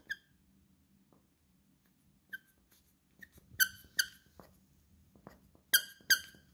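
Squeaker inside a plush toy squeaking as a puppy chews it: about six short, sharp squeaks, the later ones in quick pairs, with soft chewing and rustling between.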